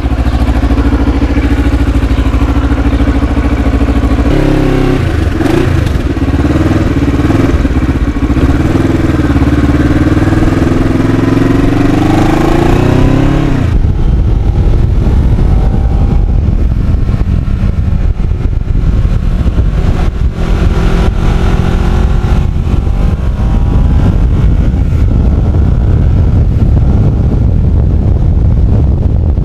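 Kawasaki Ninja 650R parallel-twin engine heard on-board while riding. The engine note is steady at first, then rises and falls from about four seconds in as the bike pulls away and changes gear. From about fourteen seconds on, at road speed, wind rushing over the microphone largely covers the engine.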